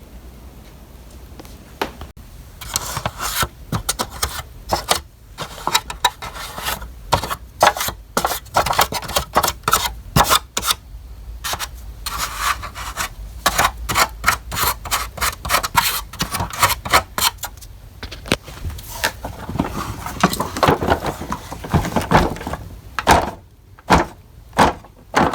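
Hands working on a vacuum cleaner's brush roller and drive belt: repeated scraping and rubbing with many quick, irregular clicks and knocks, starting about two seconds in, as hair is cleaned off the roller and the belt is handled.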